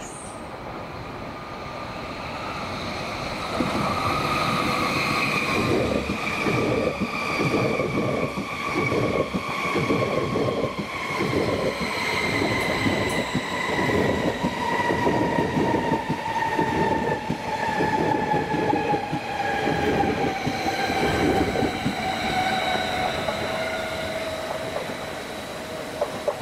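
Class 745 Stadler FLIRT electric multiple unit slowing as it comes into the station: its traction motor whine falls steadily in pitch, over a fast clatter of wheels running over rail joints and points as the carriages pass, which dies away about 22 seconds in.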